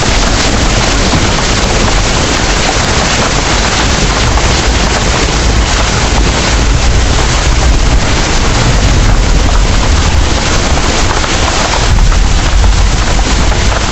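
Heavy rain pouring steadily in a dense, even hiss, with a low rumble underneath that swells about twelve seconds in.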